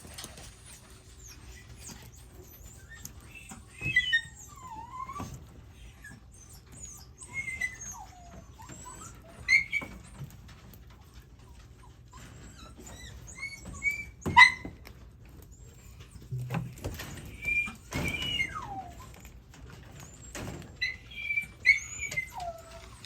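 Shiba Inu puppies whimpering and squeaking: short, high-pitched cries that slide up and down in pitch, scattered through the whole stretch, with a few light knocks in between.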